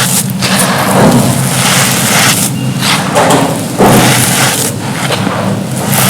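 Dry, gritty cups being crumbled by hand, close to the microphone: a dense, continuous crunching and grinding with short breaks, over a steady low rumble.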